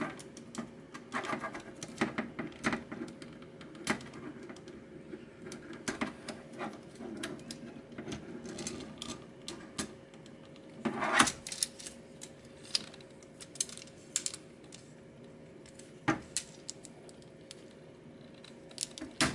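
Plastic parts of a Transformers Astrotrain action figure clicking and snapping as they are folded and pressed into place, irregular clicks with a denser crackling snap about eleven seconds in.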